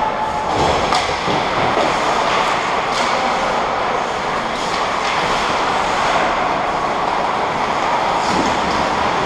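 Ice hockey play close to the goal: skate blades scraping the ice and a few sharp stick or puck clacks over a steady, loud rushing noise.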